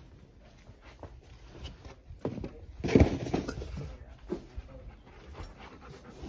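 A dog making soft sounds as it moves about, amid footsteps and handling noise, with the loudest burst about three seconds in.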